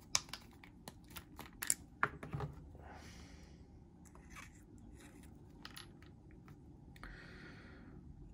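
Small hard clicks and taps from hands handling metal knife parts and a needle-tip oil bottle: a quick run of sharp light clicks in the first two and a half seconds, then only faint rustling.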